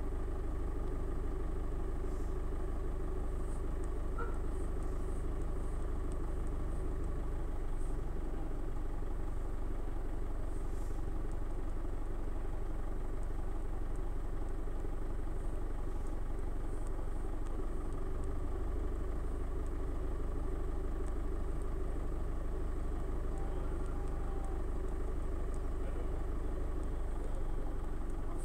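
A steady low rumble like an engine idling, unchanging in loudness, with faint light ticks now and then.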